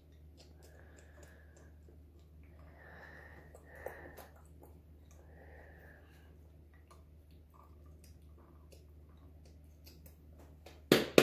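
Quiet room with light handling of small objects: one sharp click a little under four seconds in, then a quick run of loud clicks and taps near the end as wooden popsicle sticks are set and pressed across the rim of a plastic candle-mold cup to hold the wick centred.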